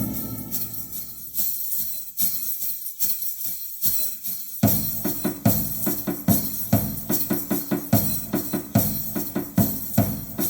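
Music with jingling, tambourine-like percussion: scattered jingles at first, then from about four and a half seconds in a steady beat of drum strikes with jingles, two to three a second.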